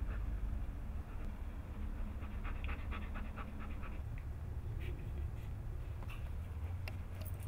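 Bernese mountain dog panting, with a quick run of short breaths in the middle, over a steady low rumble.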